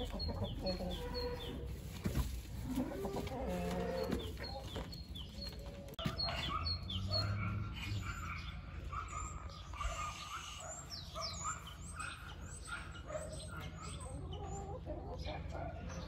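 Backyard chickens, a rooster and hens, clucking, with a run of high, short chirps through the middle.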